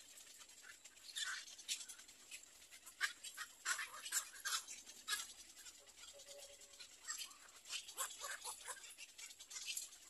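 Little egret chicks in their twig nest making short, scratchy sounds in irregular clusters, busiest from about three to five seconds in and again around eight seconds.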